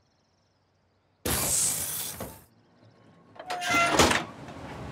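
Cartoon sound effects: after a second of silence, a hissing whoosh of about a second as the car wash doors slide open. About a second later comes a short louder sound, and then a low steady rumble of the submarine's motor starts.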